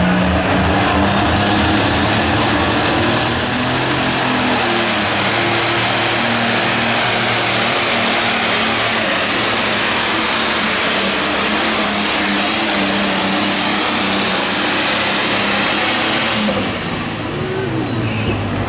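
Allis-Chalmers D21 super stock pulling tractor, a modified multi-turbocharged diesel, running at full throttle down the track under the weight of the sled. A high turbo whine climbs over the first few seconds and then holds. About sixteen seconds in the throttle drops: the engine and the whine fall away as the pull ends.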